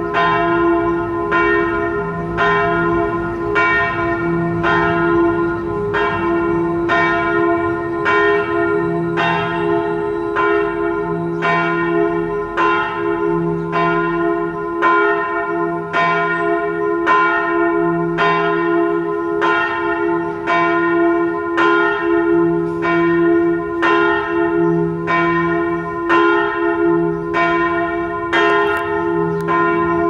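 Bells of St. Joseph church ringing steadily for the 7 a.m. morning prayer. Regular strokes follow about every three-quarters of a second over a sustained ringing hum.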